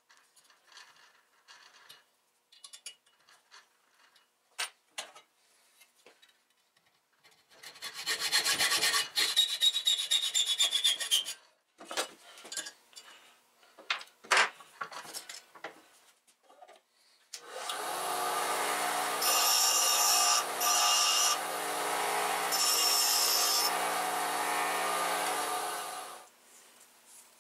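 A hex key turning a socket head cap screw into a tapped hole with small clicks, then a hacksaw cutting off the screw head in quick strokes. After that a bench grinder runs for about nine seconds, with the cut end of the screw ground against the wheel in two spells, before the motor winds down.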